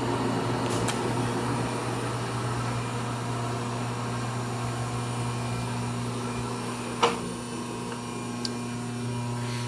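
Steady electric hum of the lathe's three-phase power setup, with its induction motors running, and a sharp click about seven seconds in.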